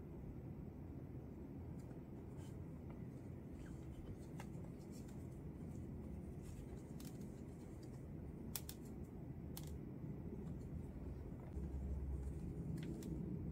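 Faint handling noises from working on potted houseplants: sparse small clicks and light rustles over a low steady hum.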